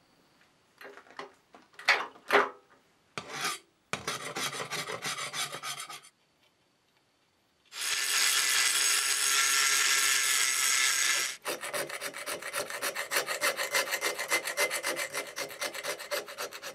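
Scraping and rubbing strokes: a few separate strokes, then a denser stretch, a short pause, about four seconds of loud steady scrubbing, and finally a fast even run of many back-and-forth strokes.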